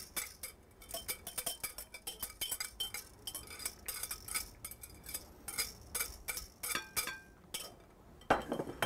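Quick clinks and scrapes of a utensil against a small glass mixing bowl as the beaten egg and butter are scraped out of it, with a brief glassy ring about seven seconds in and a louder knock near the end.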